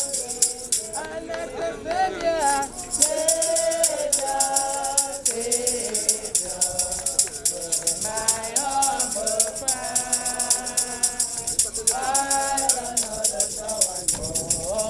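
A group of mourners singing a hymn, several voices holding long notes without clear words, over a shaker rattling a fast, steady beat.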